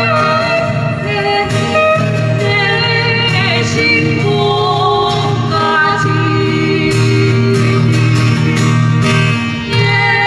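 Women singing together to strummed acoustic guitar accompaniment in a live performance.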